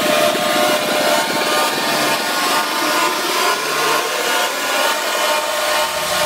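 Electronic dance music build-up: the bass is cut out, fast repeating pulses run on, and a sweep rises in pitch through the middle, building toward a drop.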